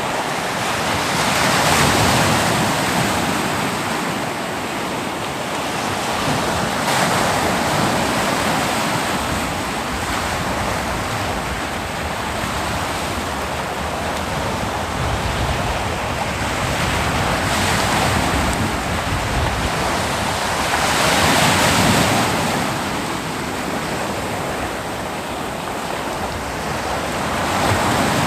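Ocean waves breaking on a beach and washing up, a continuous surf rush that swells as waves break, about every four to five seconds and most strongly near 2 and 22 seconds in.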